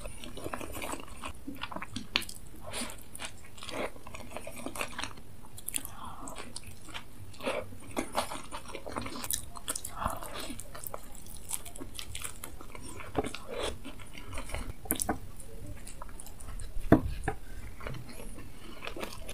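A person biting into and chewing a thick, soft filled bread with a crumbly topping: wet mouth smacks and crackling clicks throughout, with one sharper click near the end.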